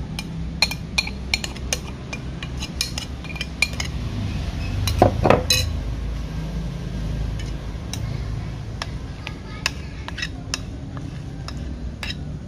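Metal spoon clinking and scraping against ceramic bowls as spice paste is scraped out onto fish, in many short, irregular clicks. A louder knock about five seconds in as a bowl is set down on the wooden table.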